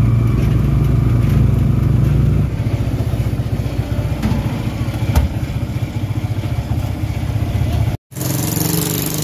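Kawasaki motorcycle engine of a motorcycle-and-sidecar tricycle running, heard from inside the sidecar; the engine note drops to a lower, lighter running about two and a half seconds in. Near the end it cuts off abruptly and gives way to street noise.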